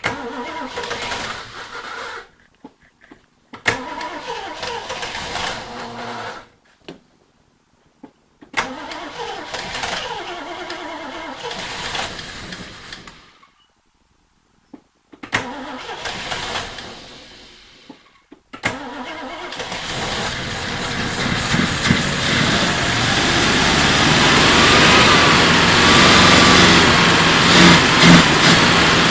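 Triumph Stag's 3.0-litre V8 being cranked on its starter in four separate bursts of a few seconds each. On the fifth try, a little past halfway, it catches and keeps running, growing steadily louder as it revs. This is its first start after sitting for a long time.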